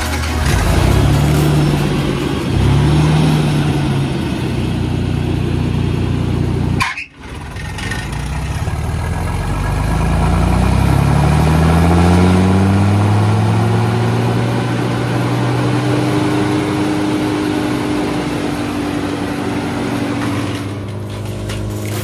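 Bandit Intimidator 15XPC wood chipper's engine running. After a sudden break about seven seconds in, it revs up in a rising glide over several seconds and then holds steady at a higher speed.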